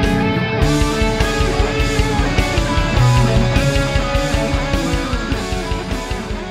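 Rock music: guitar over a fast, even drum beat, growing brighter about half a second in.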